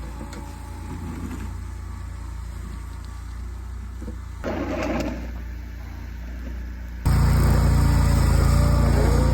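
An engine running steadily with a low hum, with a brief louder noise a little after the middle; about seven seconds in the sound abruptly becomes much louder.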